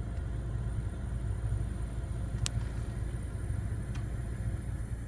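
Car interior noise: a steady low rumble of the car, with a faint thin high-pitched tone held throughout. A sharp click about two and a half seconds in and a fainter one near the four-second mark.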